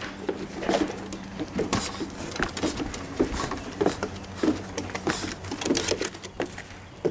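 Footsteps crunching on grass and leaf litter, about two steps a second, over a faint steady low hum.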